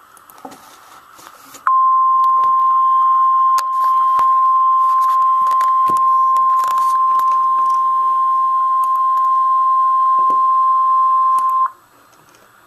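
NOAA Weather Radio's 1050 Hz warning alarm tone: one steady high beep that comes on suddenly a couple of seconds in, holds for about ten seconds and cuts off near the end. It signals that a warning message is about to be broadcast. Faint radio static with small clicks lies under it and around it.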